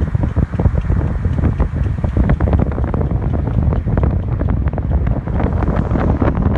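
Car moving, heard from inside the cabin: a steady low road and tyre rumble with rapid, irregular clicking and rattling through it. The owner suspects the noise comes from a tyre problem.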